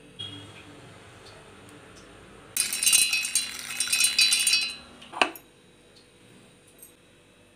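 Electric mixer grinder running for about two seconds, its steel jar rattling with hard roasted gram (pottukadalai) as it is ground to flour. It stops with a sharp knock.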